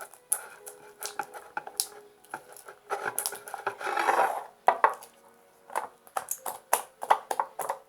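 Slime being stirred with a spoon in a container: quick clicks and scrapes of the spoon against the container, mixed with the wet, sticky noise of the slime as it thickens and reaches its set consistency.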